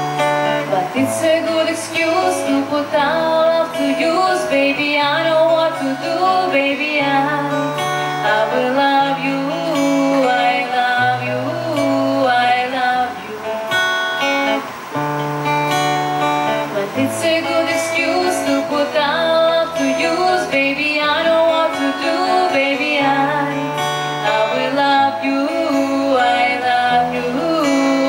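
A woman singing while playing an acoustic guitar, with held bass notes changing every second or two underneath.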